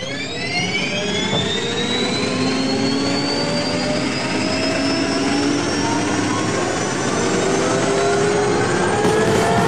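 M1A2 SEP Abrams tank's AGT1500 gas turbine spooling up: a whine of several pitches that climbs steeply over the first second, then keeps rising slowly as the turbine comes up to speed, over a steady rushing noise.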